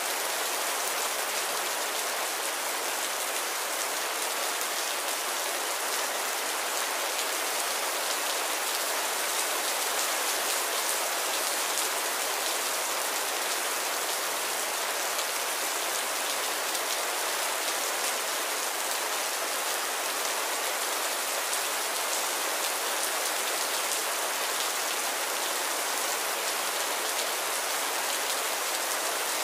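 Heavy rain pouring steadily: an even, unbroken hiss.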